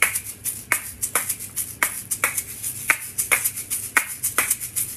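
A pair of asalato (kashaka) shakers played in their basic 'tic-tac shake shake' rhythm: sharp clacks of the two shells knocking together, about two a second in an uneven long-short pattern, with softer seed rattles between them.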